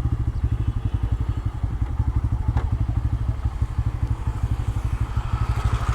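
Bajaj Pulsar N160's single-cylinder engine idling with a steady, rapid putter.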